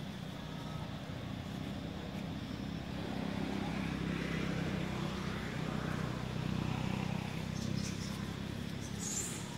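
Steady low rumble of outdoor background noise, louder through the middle, with a brief high sound near the end.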